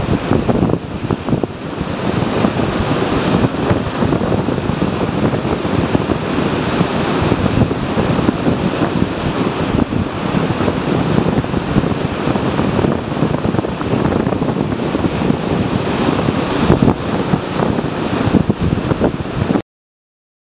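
Wind buffeting the microphone over surf breaking on a beach, a steady rushing noise that cuts off suddenly near the end.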